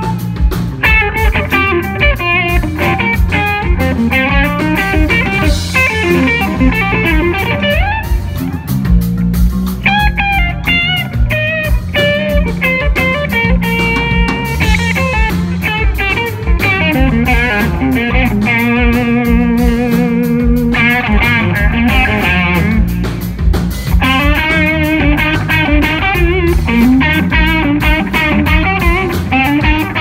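Two electric guitars jamming live with a band: a lead guitar plays melodic runs with string bends and vibrato over a steady drum-and-bass groove.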